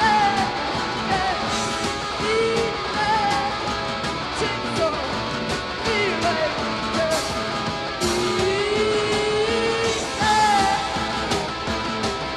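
Post-punk rock band playing live: a woman singing over electric guitar and a steady drum beat.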